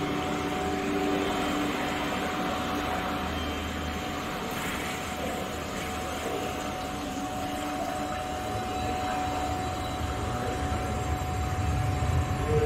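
A steady rumbling ambient drone with one faint high held tone. The low rumble swells near the end.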